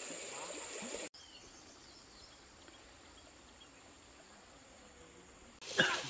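Insects shrilling in one steady high tone over outdoor background noise, cut off abruptly about a second in and leaving only a faint background hiss; a louder sound starts suddenly just before the end.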